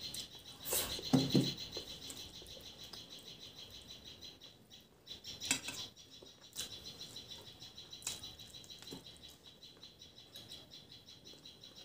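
Close-up eating sounds: fingers mixing rice on a stainless steel plate, then chewing and lip smacks, with sharp clicks now and then, loudest about a second in. A steady high chirping runs underneath.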